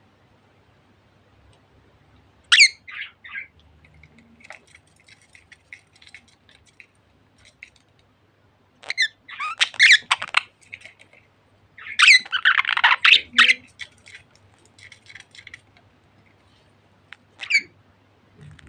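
Pet budgerigars chirping and squawking: a few loud, sharp bursts of calls with quieter rapid chatter in between.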